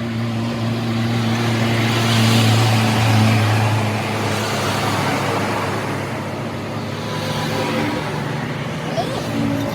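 A motor vehicle engine running steadily with a low hum, and road traffic noise that swells about two to three seconds in and then eases off.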